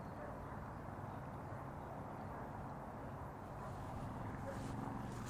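Faint, steady low outdoor background rumble, with a few soft footsteps on grass near the end.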